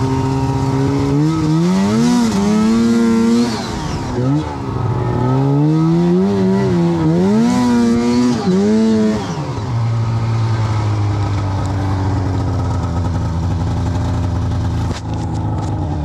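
2006 Arctic Cat M7's two-stroke twin snowmobile engine, fitted with a Speedworks can, revving up and down several times under throttle while riding, then holding a steady speed for the last few seconds.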